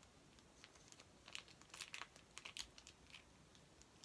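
Faint crinkling of a plastic sauce sachet being squeezed out, in scattered short rustles clustered between about one and three seconds in.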